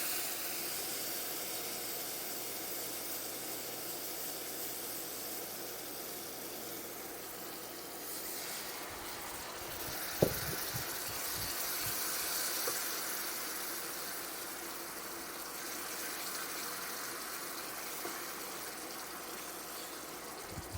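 Chicken stock sizzling and hissing in a pan of hot butter-and-flour roux, with one sharp clink of a utensil against the pan about halfway through.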